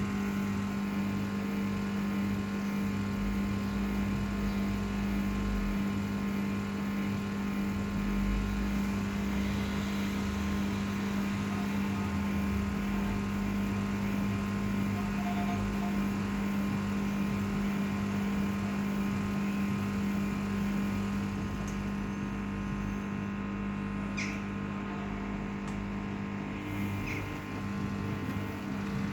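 Samsung WF0600WJV front-loading washing machine running with its drum turning steadily, a constant motor hum and low rumble as in a spin; the hum eases slightly near the end.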